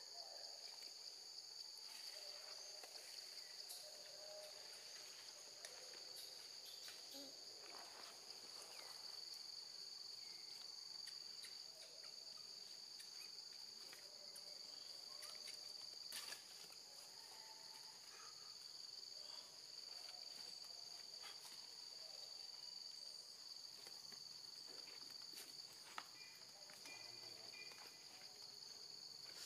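Faint, steady high-pitched chorus of insects in forest undergrowth, with a few faint clicks and rustles scattered through it.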